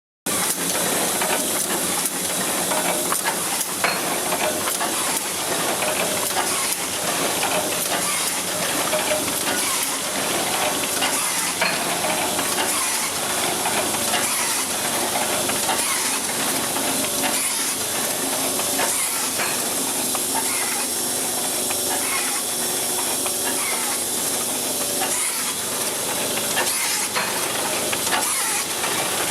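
Muller Martini HB 35 automatic book sewing machine running: a steady hiss with dense, fast mechanical clicking and clatter.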